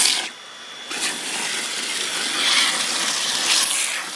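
Water jetting under pump pressure from a garden hose into a full bucket, churning and splashing, with a Goulds Irrigator GT07 centrifugal pump running. The flow drops off briefly about half a second in, then runs steady again with a couple of louder surges.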